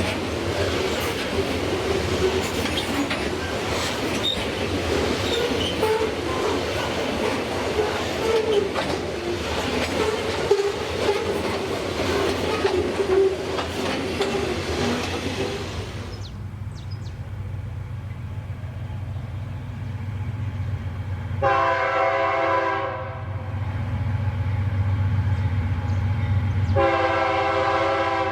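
Freight train wagons rolling past with steady wheel-on-rail clatter. Then, after an abrupt change, a diesel locomotive rumbling and sounding its multi-tone air horn twice: one blast of about a second and a half, and a second one near the end.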